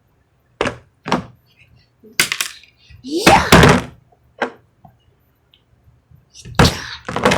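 Hard plastic toy parts knocking and clicking as they are handled and pressed together, a string of separate sharp knocks. A child's loud shout of "Yeah!" comes about three seconds in.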